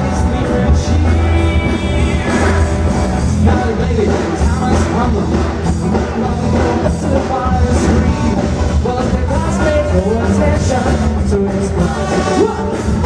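Live band playing loud amplified rock music with a lead singer, heavy bass.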